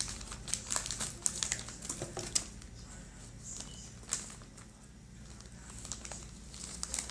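Crinkling and rustling of packaging handled by hand, with scattered small clicks and taps. It is busier in the first couple of seconds and again near the end.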